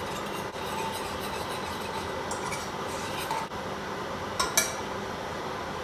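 A utensil stirring scrambled eggs in a pot on the stove, with light scraping and small clicks against the pot, over a steady hiss. Two sharp clinks, the loudest sounds, come about four and a half seconds in.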